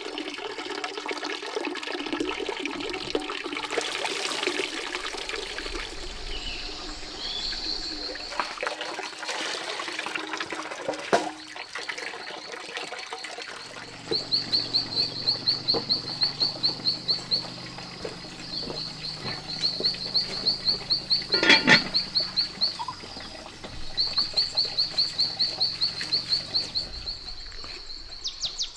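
Water running and splashing, then a high, fast-pulsing animal call that comes in three bursts of a few seconds each from about halfway through, with a sharp knock or two in between.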